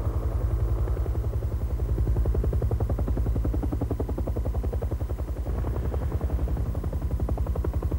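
Helicopter rotor beating at a fast, even rate of about ten beats a second over a steady low engine hum.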